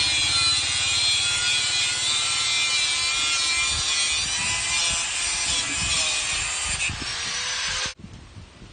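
Power saw cutting wood: a steady high whine over loud rasping noise, which stops abruptly near the end.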